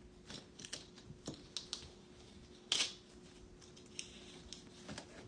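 Wrapping paper crinkling and rustling in short, scattered bursts as a wrapped gift box is opened by hand. The loudest rustle comes about halfway through, over a faint steady hum.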